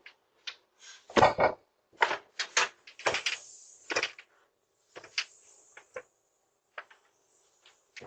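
A series of irregular knocks and clunks, the heaviest a double thud about a second in, followed by lighter clicks and taps.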